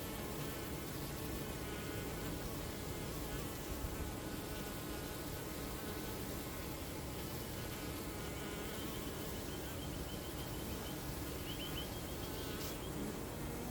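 Honeybees buzzing en masse: a steady hum of many overlapping, wavering wingbeat tones. Faint high chirps join in over the second half.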